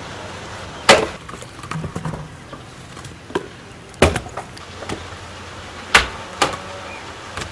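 Sharp knocks of wood being struck: four loud blows at uneven intervals, the loudest about a second in, with lighter clicks between them.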